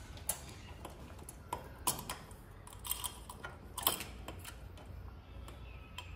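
A handful of irregular light clicks and knocks over a faint low background hum, the sharpest about two and four seconds in.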